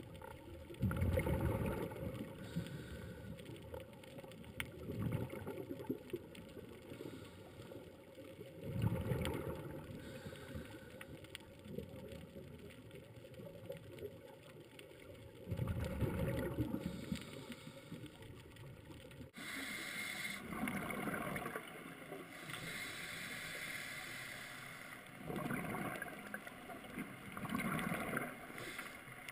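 Scuba regulator exhaust bubbles gurgling past an underwater camera, a diver breathing out in surges every several seconds, over a steady underwater rush.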